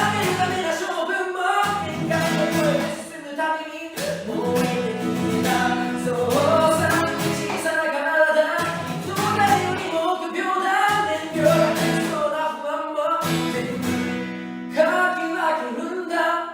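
Male voice singing with acoustic guitar strumming accompaniment. A last chord is struck near the end and left ringing.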